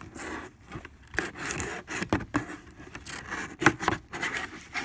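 Cardboard packaging being handled and worked open by hand: irregular rubbing and scraping with several sharp knocks, the loudest a little past the middle.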